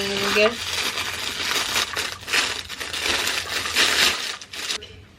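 Packaging being torn open and handled, a dense crackling and crinkling that stops a little before the end.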